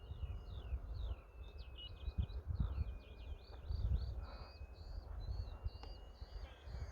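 Birds singing in quick repeated chirps over the thin, steady whine of a micro electric RC plane's motor and propeller drifting slightly in pitch as it flies, with wind rumbling on the microphone.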